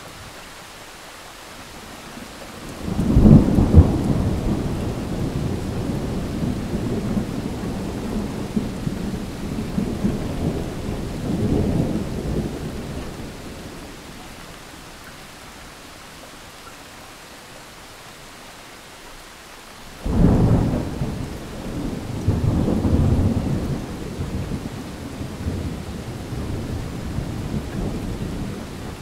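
Thunder over steady rain. One clap starts suddenly about three seconds in and rolls on as rumbling for about ten seconds. A second starts suddenly about twenty seconds in and rumbles until near the end.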